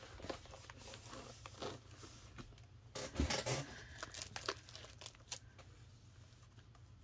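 Hands handling a spiral-bound planner and paper stationery: faint rustling of paper with scattered light clicks and taps, a little louder about three seconds in.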